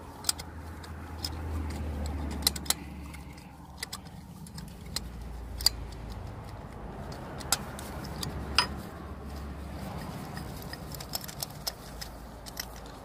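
Scattered sharp metallic clicks and clinks of a hand socket tool working the thread-insert installer out of a motorcycle spark plug hole, over a low steady rumble.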